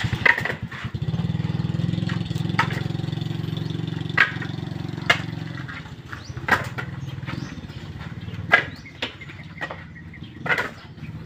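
An engine running steadily at idle, strongest through the first half and then dropping back, with sharp knocks every second or two as husked coconuts are dropped into woven bamboo baskets.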